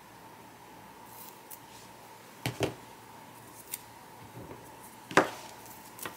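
Scissors snipping washi tape, with a few light clicks and knocks on a wooden tabletop. The sharpest knock comes about five seconds in.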